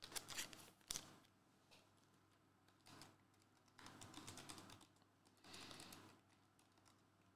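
Faint clicks and short bursts of crinkling from Panini Hoops trading card pack wrappers being picked up and handled.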